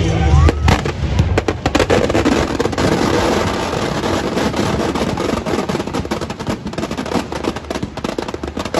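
Fireworks packed inside a burning Ravana effigy going off, a dense, rapid crackle of firecracker bangs. Loud music with heavy bass cuts out about half a second in as the bangs take over.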